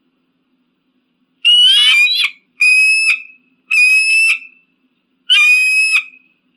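An eagle calling four times in high-pitched, whistling cries, each under a second long, the first wavering and the others held on a steady pitch.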